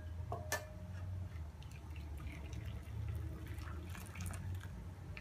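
Hot fenugreek-and-nigella-seed water being poured from a steel saucepan through a small mesh tea strainer into a bowl: a faint trickle of liquid. A couple of light metal clinks about half a second in as the pan and strainer touch.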